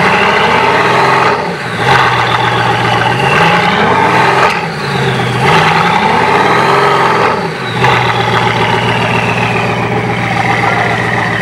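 Bugatti Vision GT's quad-turbo W16 engine revved in about four rising and falling surges over its idle, then settling back to a steady idle. The car is struggling to climb a truck ramp under its own power.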